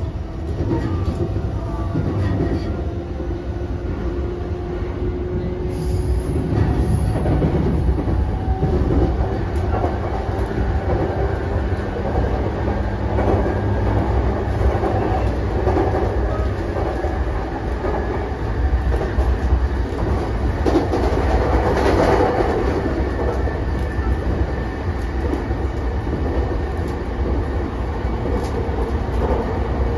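Interior running sound of a JR East E233-5000 series electric commuter train under way: a steady deep rumble of wheels on rails, growing a little louder around the middle.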